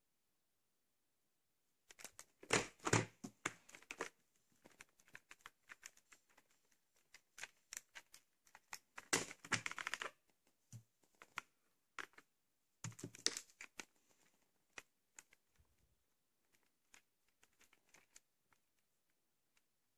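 Plastic packaging being handled: crinkling, crackling bubble wrap and clicks of a plastic VHS clamshell case. Three louder bursts of crackling, about two seconds in, around nine seconds and around thirteen seconds, with scattered light ticks between.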